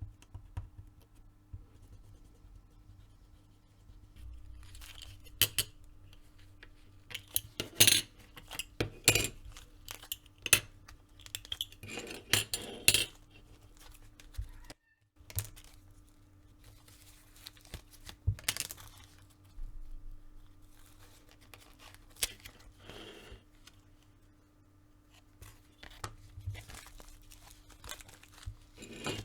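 Hand leatherwork with tools: irregular scrapes, taps and clicks of leather and metal tools being handled, busiest in the middle. A faint steady hum runs underneath.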